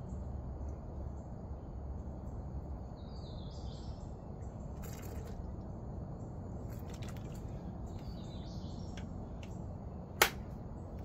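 Steady outdoor background with faint bird chirps twice, and a single sharp click about ten seconds in.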